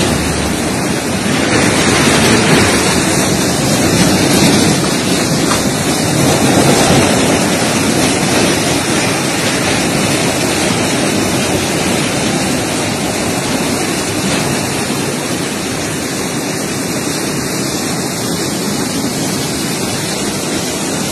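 Muddy flash-flood water rushing past in a fast torrent: a loud, steady roar of water.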